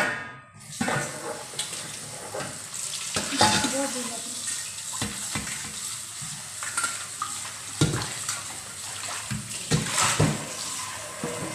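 Food sizzling steadily in a frying pan on a gas stove, with a stainless steel pot lid knocking and clanking a few times.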